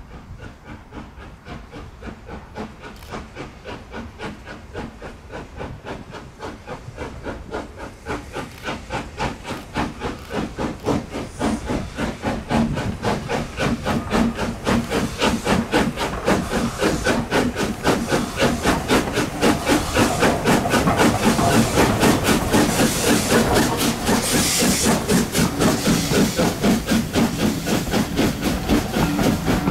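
SR Maunsell Schools class 4-4-0 no. 925 'Cheltenham', a three-cylinder steam locomotive, working a passenger train towards and past the listener: a rapid, even exhaust beat that grows steadily louder as it approaches, with steam hiss that swells as the engine draws level, then the coaches running by.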